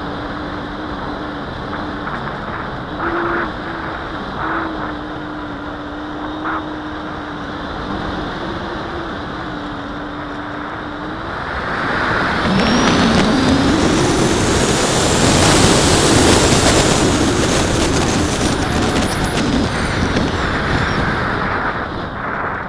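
Parkzone Radian RC glider's electric motor and propeller with rushing air over an on-board camera. A steady hum for the first half, then about halfway through the motor spools up: the sound grows much louder and rises in pitch with a high whine, settling back somewhat near the end.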